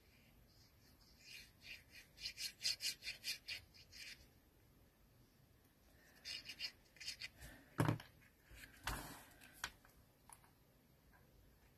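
Glue stick rubbed quickly back and forth over a small paper strip, in two bouts of scratchy strokes, followed by two soft knocks on the work mat.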